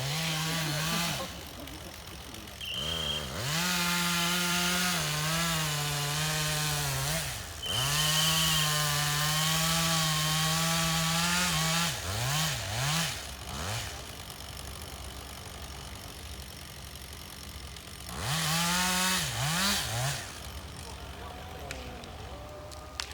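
Forestry harvester working logs: its engine and hydraulics load up in several long surges, holding a steady pitch, then dropping and gliding back down between them, with short high whines at the start of two of the surges.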